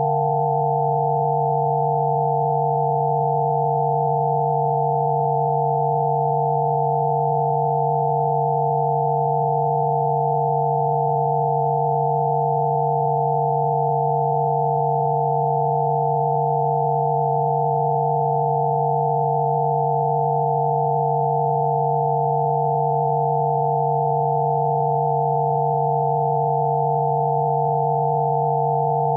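Electronically generated Rife-frequency sine tones: a low tone and several higher pure tones layered together, held steady and unchanging.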